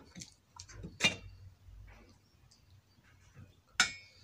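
A person eating rice and fish curry by hand from a steel plate: soft chewing and mouth sounds, with two sharp clicks, one about a second in and one near the end.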